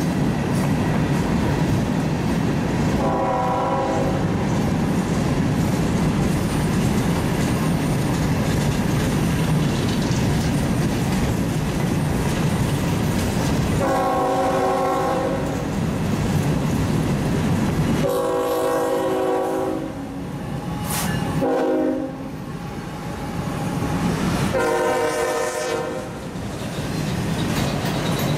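A train rolls past with a steady rumble and wheel clatter while a locomotive air horn sounds six times, short and long blasts, the last a long one near the end. The rolling rumble eases off after about two-thirds of the way through.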